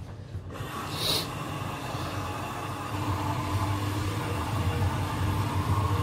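Hoover DXOA69HC3B front-loading washing machine running at the start of its wash cycle, a steady mechanical hum with a faint hiss that grows a little louder about three seconds in.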